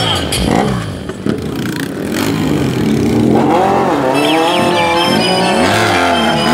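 Motorcycle engine revved up and down again and again, its pitch rising and falling repeatedly from about three seconds in, after a stretch of quieter mixed engine noise.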